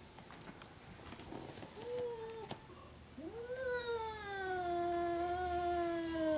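A cat's drawn-out warning yowl at an unfamiliar cat. A short call comes about two seconds in, then a long yowl from about three seconds in that rises at first and then holds steady.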